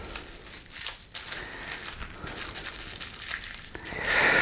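Plastic packaging crinkling and rustling as it is handled and pulled off a figure part, louder near the end.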